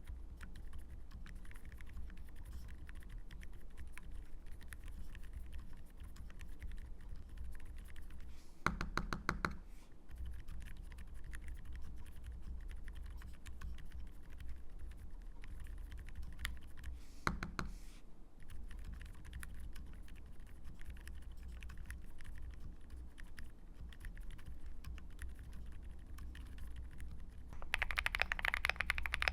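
Typing on a full-aluminium mechanical keyboard fitted with silent mint switches: a fast, muted patter of keystrokes, with a brief louder cluster of strikes about 9 s in and another near 17 s. Near the end the typing turns louder and clickier.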